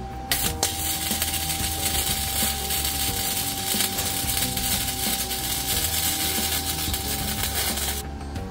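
Electric arc welding a lockbox onto a metal gate: the steady crackle of the arc starts about a third of a second in and cuts off shortly before the end, one continuous bead.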